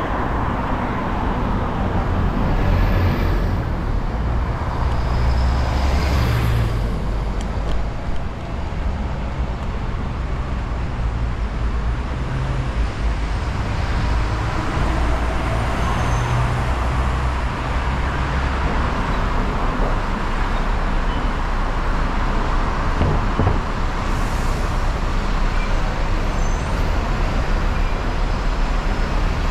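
Steady city road traffic: motor vehicles running past on a busy street, with a constant low rumble.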